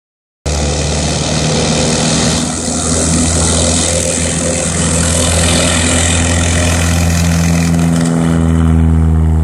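Single-engine Cessna light aircraft's piston engine and propeller running steadily as the plane moves along a grass airstrip, growing slightly louder as it comes near toward the end.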